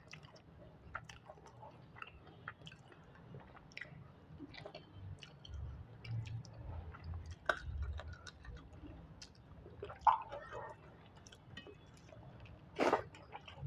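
A person chewing a mouthful of rice and fish curry with wet mouth sounds, along with small clicks of fingers mixing food on a stainless steel plate. One sharp louder click comes about ten seconds in, and a short louder noisy burst comes near the end.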